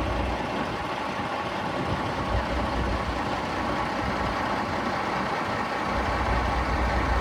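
Steady noise of idling heavy engines and street traffic, with a continuous low rumble and no distinct events.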